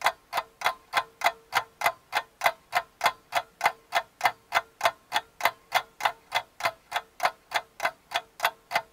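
Ticking clock sound effect, even ticks about two and a half a second with a faint steady tone beneath, counting down the time to answer a quiz question.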